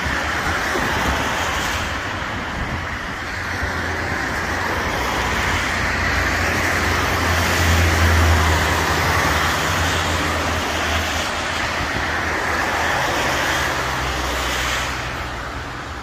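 Rain falling with road traffic on wet streets: a steady hiss of rain and tyres on wet asphalt over a low rumble that swells about halfway through as a vehicle passes.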